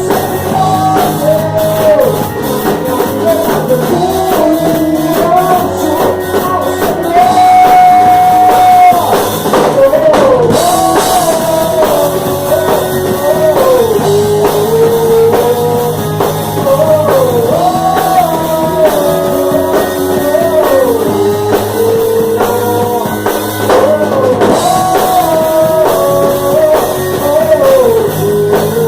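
Live band playing a rock-style worship song, with drum kit and guitar under a melodic lead line.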